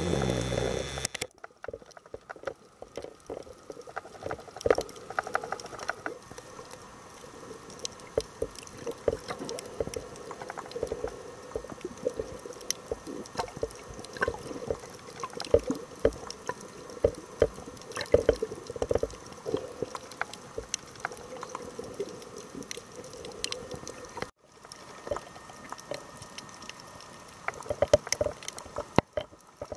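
Underwater reef ambience: a dense crackle of small sharp clicks over bubbling, gurgling water, dropping out briefly a couple of times.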